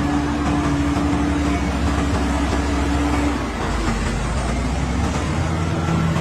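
Caterpillar bulldozer's diesel engine running steadily under load, its note changing about halfway through.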